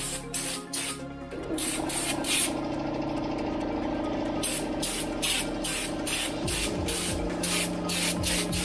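Compressed-air blow gun giving repeated short hissing blasts as it blows dust out of an ATV's foam air filter element from the inside, in quick trigger pulls, several a second in places. A steady hum runs underneath from about a second and a half in.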